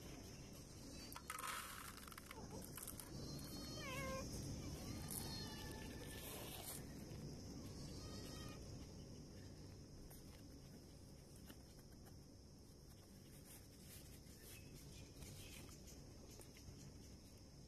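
Calico mother cat meowing: three short meows in the first half, the first gliding down in pitch. There is a brief noise about a second in, and only faint background after the meows.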